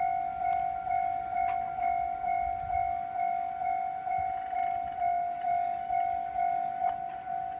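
Japanese level-crossing warning bell ringing in an even, repeating pattern of about two strokes a second, signalling that a train is approaching.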